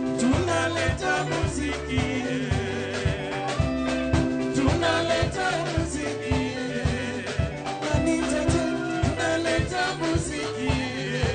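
Live band playing with a steady drum beat: two vocalists singing over electric guitar, bass guitar and drum kit.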